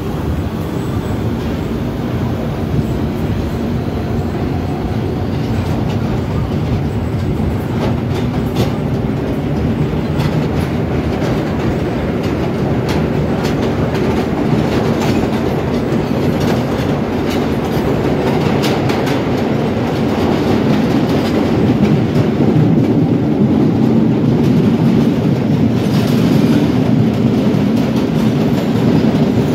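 1930s R1/R9 'Arnines' subway cars running at speed, heard from the end door between cars: a loud steady rumble of wheels on rail with scattered clacks over rail joints. The running noise grows louder about two thirds of the way through.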